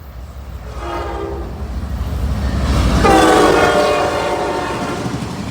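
A locomotive horn sounds as the train approaches: a short blast about a second in, then a longer, louder blast from about three seconds in. Under it, the low rumble of the passing train swells.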